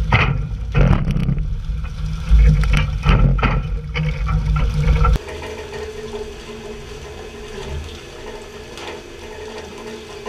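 Water splashing and churning against a fishing boat's side while tuna are pole-fished aboard, over a deep rumble, with irregular crashes of spray. About five seconds in it cuts abruptly to a much quieter steady drone with a faint hiss of water.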